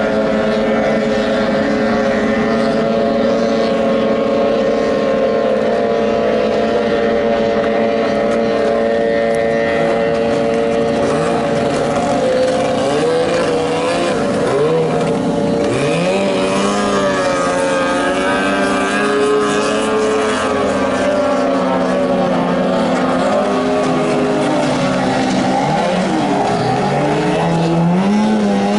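15 hp outboard motor on a small racing boat running at high revs. It holds a steady whine for the first twelve seconds or so, then rises and falls in pitch as the boat runs past and turns.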